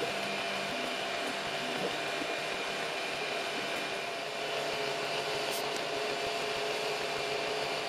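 3D printer printing a case part: a steady fan whir with stepper-motor tones that shift in pitch as the head moves.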